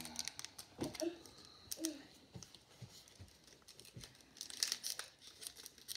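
Foil Pokémon booster-pack wrapper crinkling and being torn open, with scattered light clicks from handling the pack and cards. The crackling is heaviest near the end.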